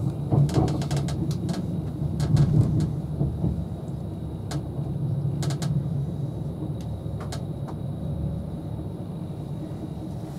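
Steady low rumble heard inside the carriage of an Avanti West Coast Class 390 Pendolino electric train running at speed, with scattered sharp clicks and ticks, more of them in the first few seconds.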